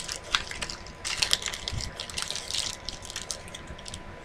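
Putty with foam beads mixed in being squeezed and kneaded by hand, giving a dense, irregular run of small crackles and clicks.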